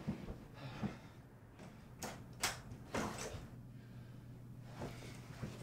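A few light knocks, scrapes and rattles as a sash window and its blinds are pushed and worked at, spaced a second or so apart. A faint low hum sits underneath.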